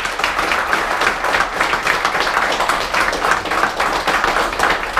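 Audience of a few dozen people applauding: dense, steady hand clapping.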